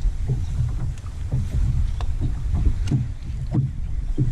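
Water slapping irregularly against the hull of a bass boat, over a choppy low rumble of wind on the microphone.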